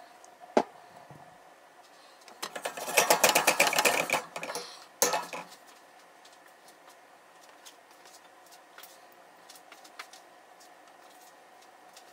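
Kitchen utensils clattering against cookware: a single knock, then about two seconds of rapid dense clattering, then another knock. After that only a low steady hum with scattered light ticks is left.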